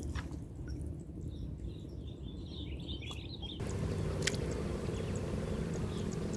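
Open-air ambience with a steady low rumble and a few short bird chirps about two to three seconds in, followed by a couple of faint sharp ticks.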